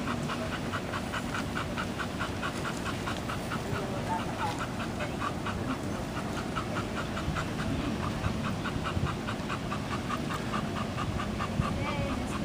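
A dog panting quickly and steadily, about four to five breaths a second.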